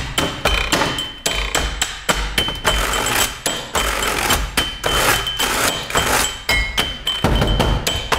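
Office objects played as a percussion ensemble: a dense, rhythmic pattern of quick clicks, taps and knocks from computer keyboards and desktops, with low thuds underneath.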